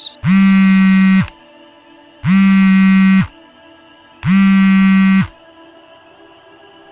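Mobile phone vibrating with an incoming call: three loud one-second buzzes, evenly spaced about two seconds apart.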